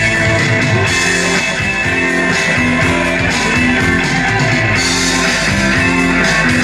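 Loud music with guitar over a bass line that steps from note to note, in a rock style.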